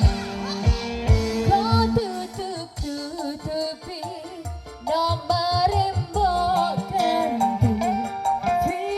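Music with a woman's ornamented sung melody over heavy bass-drum beats, played loud through a large line-array and subwoofer sound system.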